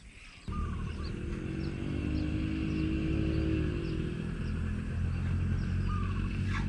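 A motor vehicle's engine running nearby, coming in about half a second in, its hum rising slightly in pitch and then fading while a low rumble carries on. Faint bird chirps over it.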